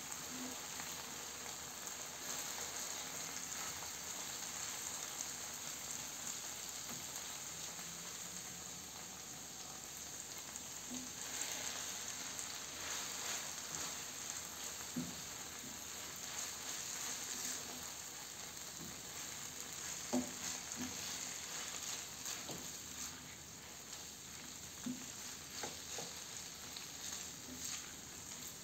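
Tomato, onion and fried eggplant mixture sizzling in a nonstick frying pan while a spatula stirs it, with a steady hiss. A few sharp knocks of the spatula against the pan come in the second half.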